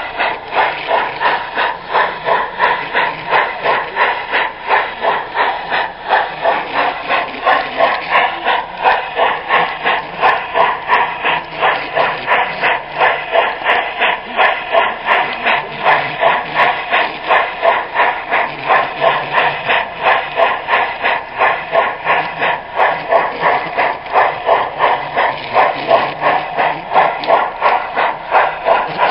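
Garden-scale model train running along its track, heard from a camera car riding on it: a steady rhythmic clatter of about three to four beats a second.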